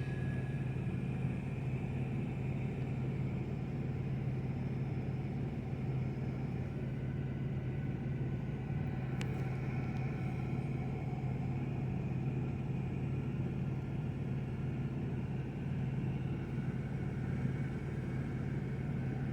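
Steady low hum of an idling engine, even and unchanging, with one faint click about nine seconds in.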